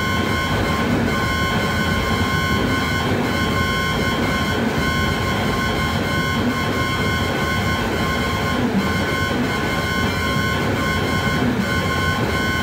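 Homemade light-responsive oscillator synthesiser (OSC^n) playing a dense, steady noise drone: a low rumble with several high held tones over it, the sound driven by the flashing projected text.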